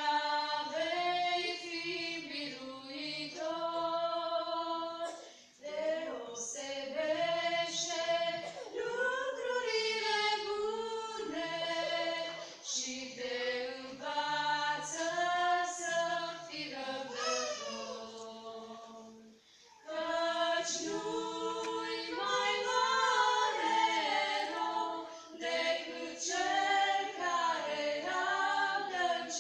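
A small group of female voices singing a hymn a cappella, with a short break about twenty seconds in before the singing picks up again.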